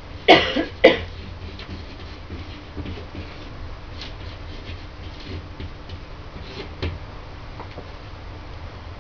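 A person coughing twice in quick succession near the start, then faint scratching of a felt-tip marker writing on a wall.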